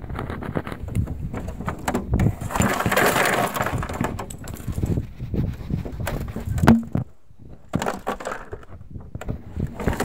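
Ice cubes clattering and rattling inside a plastic refrigerator ice bin as it is tipped and shaken out, with knocks of the plastic bin being handled; the rattle is heaviest a few seconds in, and there is one sharp knock about seven seconds in.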